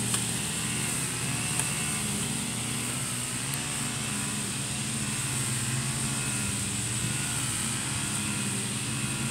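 Steady drone of lawn mower engines running without a break, with no rise or fall in level.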